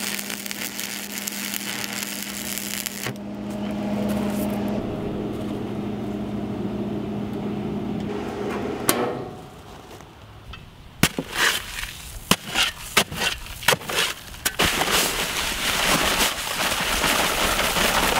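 An AC arc welder stick-welding a steel post to a scrap steel plate: a steady crackling hiss over a transformer hum, stopping about nine seconds in. Then, from about eleven seconds, irregular knocks and rustling as paper bags of dry concrete mix are shaken out into a plastic wheelbarrow, ending in a steady rush of pouring powder.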